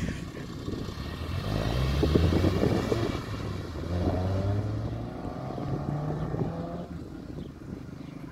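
Honda Civic Type R's 2.0-litre four-cylinder, breathing through a Cobra 2.5-inch aftermarket exhaust, accelerating hard from a standstill. The revs build to their loudest about two seconds in, there is a break at a gear change near four seconds, then the revs climb again as the car pulls away and fades.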